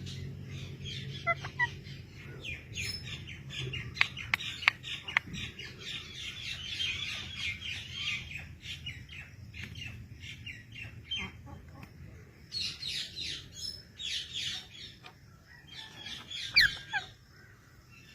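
A pet parrot chattering in rapid runs of short, high calls with sharp clicks and whistles, pausing briefly partway through and ending with a short falling whistle.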